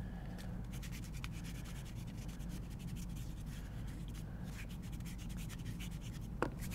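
Hands rubbing and scraping lifting chalk into the palms over steel chalk bowls, a dry rasping friction, with a steady low hum underneath. A brief sharp click comes near the end.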